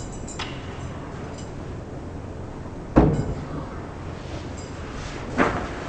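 A single sharp hand slap, a smack on skin, about three seconds in, then a softer smack near the end.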